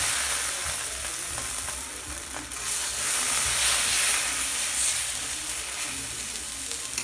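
Sago-and-semolina dosa batter sizzling on a hot tawa as a steel ladle spreads it out thick. The sizzle swells again about two and a half seconds in.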